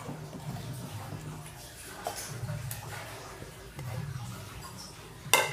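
Faint soft handling sounds as pieces of marinated fish are pressed into a clay pot by hand, with small ticks over a low steady hum. There is one sharp knock near the end.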